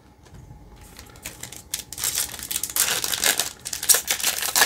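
Plastic-foil wrapper of a Donruss basketball card pack crinkling and tearing as it is opened by hand: rapid crackling that starts faint and grows louder about two seconds in.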